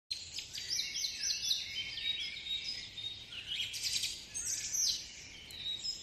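Many birds chirping and twittering in a dense, overlapping chatter of short high calls.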